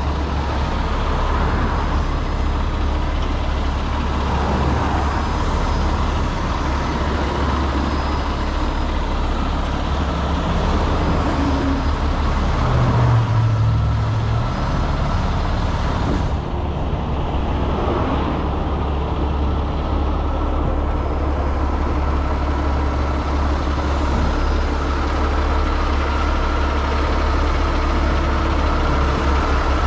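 Heavy truck's diesel engine running steadily, with a brief stronger low hum about thirteen seconds in.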